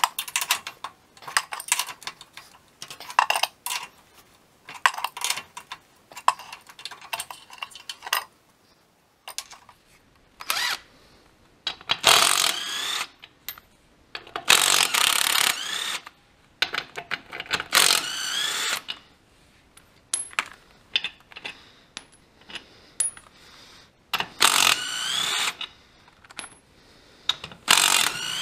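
Metal clinks and taps of a wrench on a steel bolt and nut. Then, from about ten seconds in, a Hitachi cordless driver running bolts at a tractor wheel rim in bursts of a second or two, its motor whine rising and falling, with clicks between the bursts.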